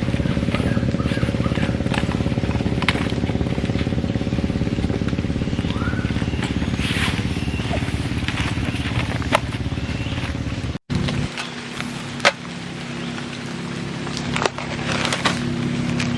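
Motorcycle engine running steadily with scattered ticks. About two-thirds through there is a brief break, and the engine then runs more quietly at a different pitch.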